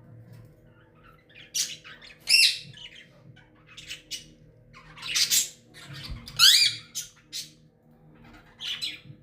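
Green Indian ringneck parakeet giving a series of short, loud squawking calls, about seven in all, some bending up and down in pitch.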